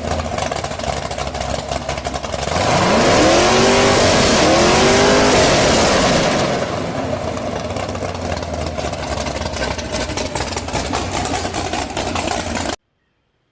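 A motor vehicle's engine running over a loud, noisy background, revving up and down in pitch twice a few seconds in, which is the loudest part. The sound cuts off suddenly near the end.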